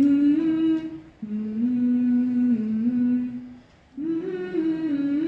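Voices humming a slow melody, long held notes that step up and down, in phrases with a short pause about a second in and another just before the end.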